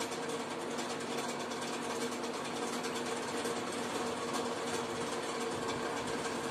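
Steady mechanical hum: an even, unbroken drone with a constant low tone over a soft hiss.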